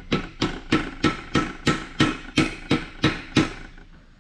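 Hammer tapping a new bearing onto the output shaft of a Peerless 1050 gearbox held in a vise: about a dozen evenly spaced strikes, roughly three a second, each with a short ring. The bearing is going on tight over a shaft end that has mushroomed from wear.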